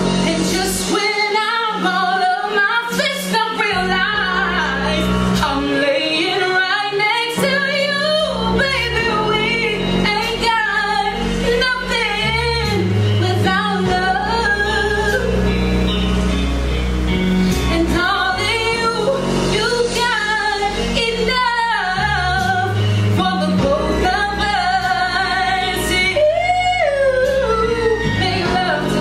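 A woman singing a slow soul ballad live, with long sliding vocal runs and wide vibrato, over instrumental accompaniment with a steady bass.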